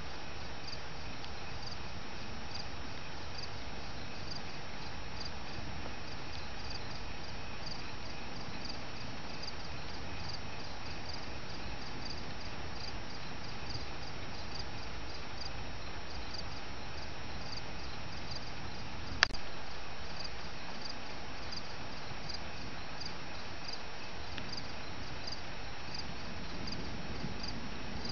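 Crickets chirping steadily in an even, repeating rhythm. About two-thirds of the way through there is a single sharp click, louder than the chirping.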